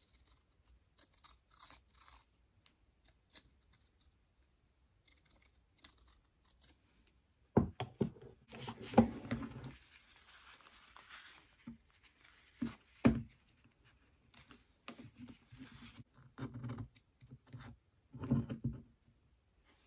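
Hands working on a cordless drill's motor housing: scattered clicks and taps of metal parts, sharp knocks about a third of the way in and again two-thirds in, and paper towel rustling in the middle as the housing is wiped. Near the end, a metal pick scrapes and taps inside the housing, cleaning out carbon deposits and melted plastic from an overheated motor.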